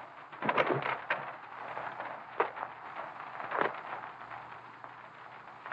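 A few sharp knocks and thumps over the steady hiss of an early sound-film soundtrack: a quick cluster about a second in, then single knocks spaced a second or so apart.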